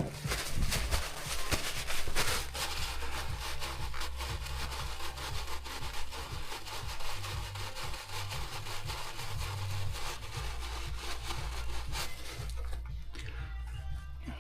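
Ratchet wrench clicking rapidly as it undoes the large, oily hex blanking bolt under a 1JZ-GTE's VVT-i oil control valve. It makes a dense, rasping run of clicks that eases off near the end.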